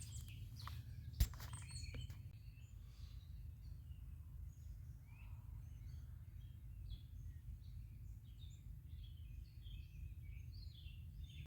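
Small birds chirping faintly and repeatedly over a steady low rumble, with one sharp click about a second in.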